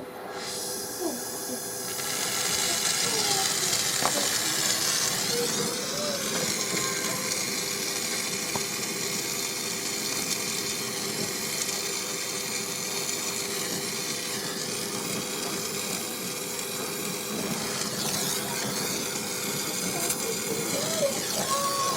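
A steady hiss that comes up about two seconds in and holds, over a steady low hum.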